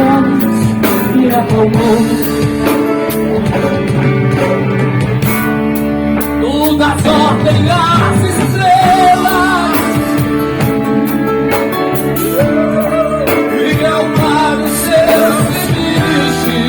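Live Christian rock band playing, with a sung lead vocal over drum kit, electric guitar and bass.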